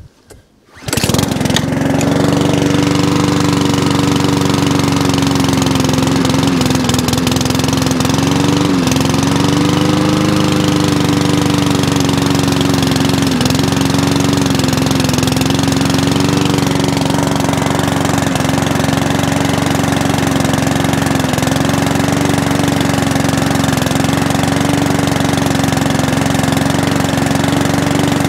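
Mountfield push lawnmower's petrol engine starting suddenly on the pull-cord about a second in after five primer pumps, then running steadily and loudly with a slight waver in its note. The engine is still cold after four months' storage with ethanol-free petrol and runs slightly rough.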